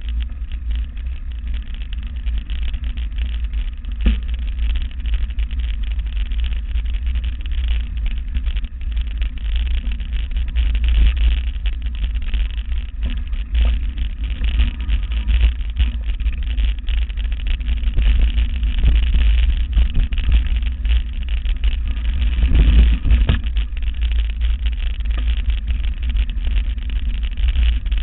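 Mountain bike rolling fast over a rough dirt trail, heard as a steady low rumble of wind and vibration on the bike-mounted camera, with frequent small knocks and rattles from bumps.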